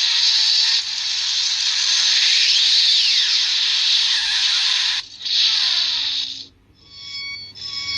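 Electronic sound effects played by an Arduino sound module through a small speaker: a loud rushing hiss that cuts off about five seconds in, a second short burst of hiss, then, after a brief pause, repeated electronic beeping.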